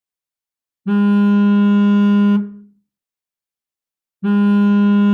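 Mobile phone vibrating: two steady, low buzzes, each about a second and a half long, the first starting just under a second in and the second about four seconds in, separated by silence.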